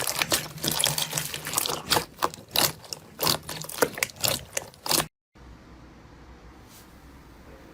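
Slime being squished and kneaded by hand: rapid wet clicks, pops and squelches. About five seconds in it cuts off abruptly, leaving only a faint steady hum.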